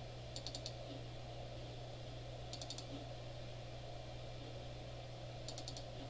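Computer mouse button double-clicking three times, about two and a half to three seconds apart, each a quick cluster of sharp clicks, as folders are opened one after another. A steady low hum runs underneath.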